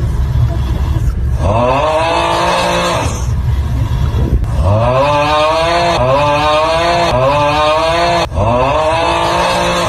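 A person snoring very loudly in long rattling snores, each carrying a wavering pitched tone that bends up and falls away, three or four in a row with almost no pause between them.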